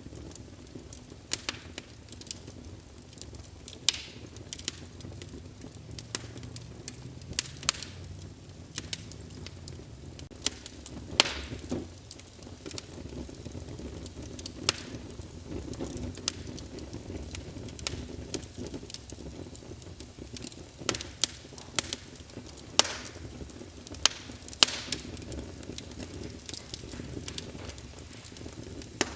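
Wood fire burning in a fireplace: irregular sharp crackles and pops of burning logs, scattered through the whole stretch, over a steady low rush of the flames.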